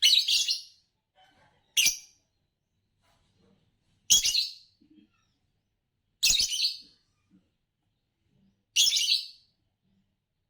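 Green Fischer's lovebirds chirping: five short, high-pitched chirp bursts spaced about two seconds apart.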